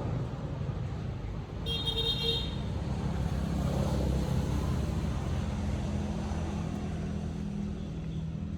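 A steady low rumble, with a brief high-pitched tone about two seconds in.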